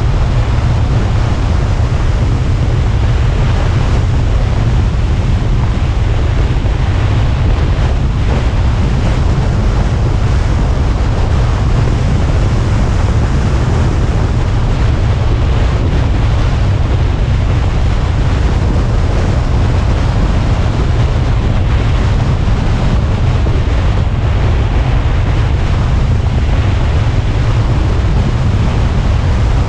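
Steady wind noise buffeting the microphone of a moving car, a heavy low rumble with a hiss above it and no clear engine note.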